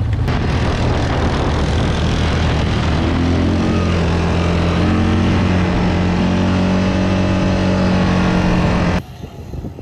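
Yamaha quad bike engine running under way across sand, with a rushing noise over it. After about three seconds the engine note settles at steady revs. It cuts off abruptly near the end.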